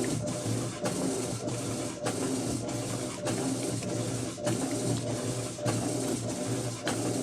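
Electrolux LF10 top-loading washing machine in its wash cycle: the motor hums with a regular click about every half-second or so.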